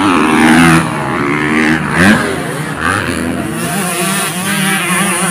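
Dirt bike engines revving, their pitch rising and falling as riders work the throttle on the motocross track, loudest about two seconds in.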